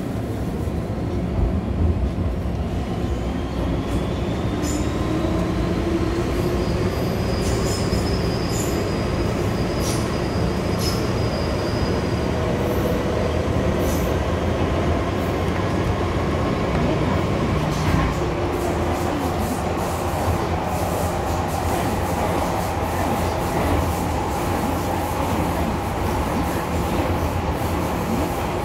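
MTR M-Train subway car running, heard from inside the car: a whine that rises in pitch in the first several seconds as the train picks up speed, over steady wheel and rail rumble with scattered clicks. A high wheel squeal holds for a few seconds about a third of the way in.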